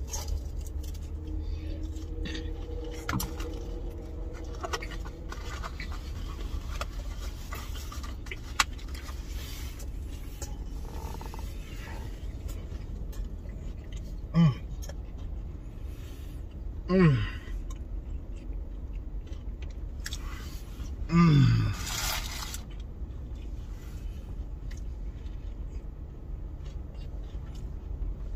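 Eating sounds: a plastic fork scraping and clicking against food and its container, and chewing, over a steady low hum. Three short hums of pleasure fall in pitch in the second half.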